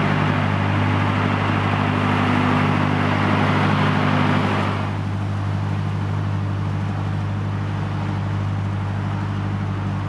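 Narrowboat's diesel engine running with a steady low hum, under a wash of motorway traffic noise from the elevated roads overhead. The traffic noise eases off about five seconds in, while the engine hum carries on.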